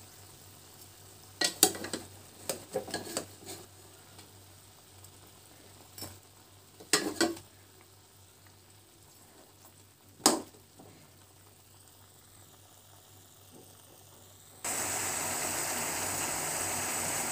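A steel ladle knocking and scraping against the kadai of cooking chicken a few times, then, near the end, a sudden steady sizzle of the chicken pieces frying in oil now that their water has cooked off.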